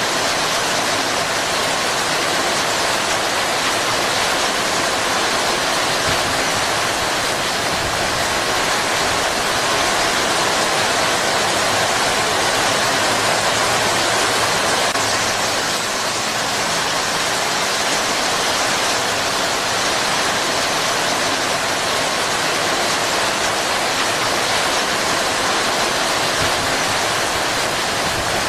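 Heavy rain pouring down steadily, a constant dense hiss with no thunder.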